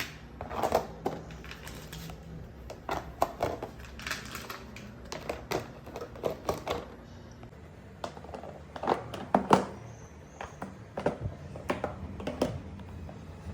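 Irregular light clicks and knocks of objects being handled and set down, several close together, with the loudest pair about nine seconds in.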